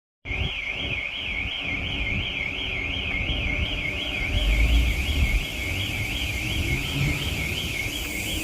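Electronic alarm sounding a fast warbling tone that sweeps up and down about three times a second, starting just after a brief silence, over a low outdoor rumble.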